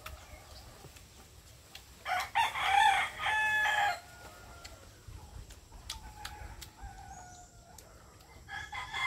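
A rooster crowing: one loud crow of about two seconds, starting about two seconds in, then a fainter crow around six seconds in.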